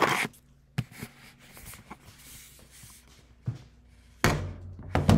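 Handling noise from a phone camera being picked up, carried and set down: a series of knocks and bumps with rubbing between them, loudest about four seconds in and again just before the end.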